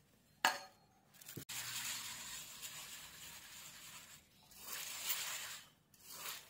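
A metal spoon clinks once against the stainless steel bowl, then a hand rubs and stirs damp glutinous rice in the bowl, a gritty rustling scrape of grains on steel in three stretches.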